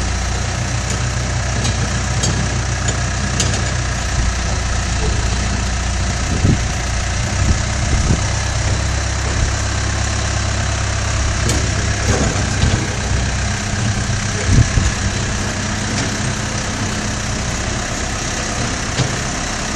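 Case 590 backhoe loader's diesel engine running steadily at low revs while it handles a steel trench shoring box hung from its front bucket, with a few short knocks in the middle of the stretch.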